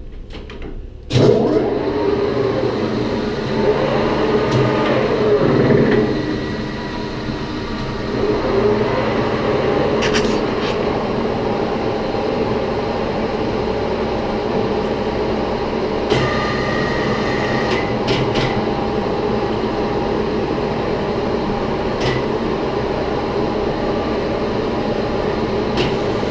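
A metalworking machine tool boring out the inside of a vacuum compressor housing. It starts suddenly about a second in, then runs steadily while the cutter takes a finishing pass of about a tenth of a millimetre to clear the last pits in the bore.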